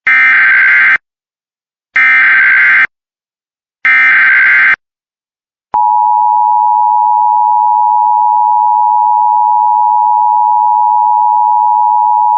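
Emergency Alert System SAME header: three identical short bursts of buzzing digital data tone, about two seconds apart. Then the steady two-tone EAS attention signal comes in about halfway through and holds.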